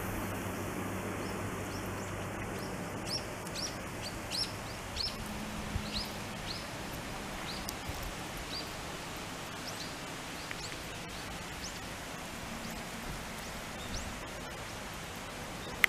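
A small bird chirping repeatedly: short, high, rising chirps about two a second for several seconds, then a few scattered ones, over a steady outdoor hiss.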